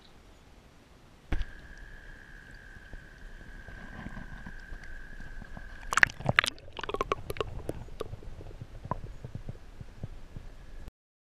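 Water sloshing, gurgling and splashing around a camera held at the waterline while a brown trout is held in the river and let go. There is a sharp knock about a second in and a steady high whine underneath. The splashing grows loud and crackling about halfway through, and everything cuts off suddenly near the end.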